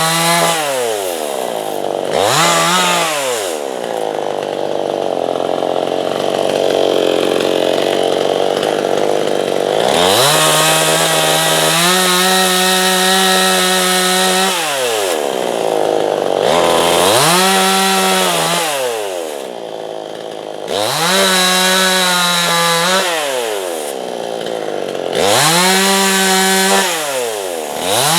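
Two-stroke chainsaw ripping lengthwise through a softwood log to cut a slab, the engine repeatedly climbing to a high steady pitch and then dropping off every few seconds. For several seconds near the start it runs at a lower, labouring pitch with a rougher cutting noise.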